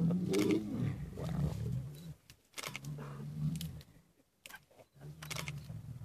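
Male lions growling in low, drawn-out grumbles as they rub heads and bodies together in a greeting that reinforces their social bond. The growls come in three spells, with short crackles of dry grass between them.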